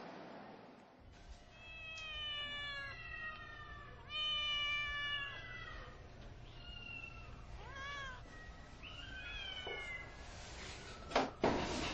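Kitten meowing repeatedly: about five or six high calls, the longer ones falling in pitch, then a sharp knock near the end.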